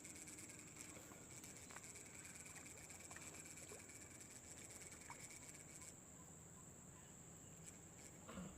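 Faint insects chirring steadily: a high continuous buzz, joined by a lower-pitched one that stops about six seconds in, with a few faint ticks.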